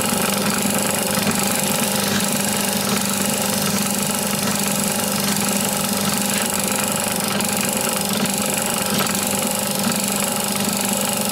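Drill press running steadily, spinning a steel collet from a collet sizing die on a bolt while abrasive paper is held against it, polishing worn striations off the petals. A steady motor hum under a broad rushing hiss.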